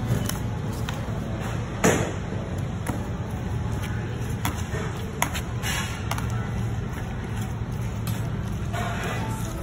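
A spoon stirring and scraping shredded carrot, chives and chili paste in an aluminium mess tin, with a sharp clack about two seconds in and a smaller click around five seconds, over a steady low hum.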